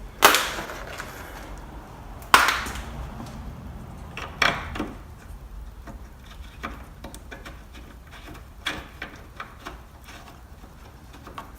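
A car's plastic headlamp assembly being worked back into its place: two sharp knocks with short scraping rattles, one at the start and one about two seconds in, a third knock about halfway through, then lighter clicks and taps.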